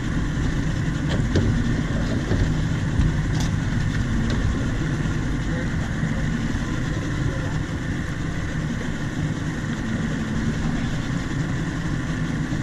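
An engine running steadily at an even speed, with a few faint clicks about a second and three seconds in.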